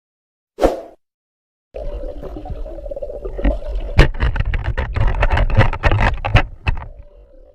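Water splashing and sloshing with a quick run of knocks and clatters over a low rumble, starting abruptly after a single short sharp sound and near-silence.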